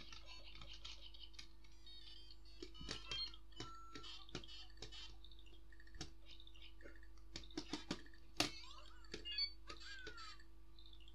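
LEGO Super Mario interactive figure's small speaker playing electronic bleeps and short jingles as it is moved over the course pieces, with a falling tone near the end. Sharp plastic clicks come in between as the figure and bricks are pressed down.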